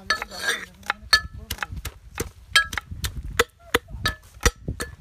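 Knife chopping peeled spices on a cutting board: a quick, irregular run of sharp knocks, about three to four a second, some with a short ring from the blade.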